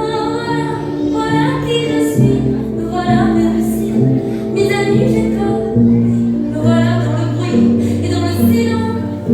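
Recorded music: a French chanson, with a melodic line, which may be a woman's voice, over sustained accompaniment chords.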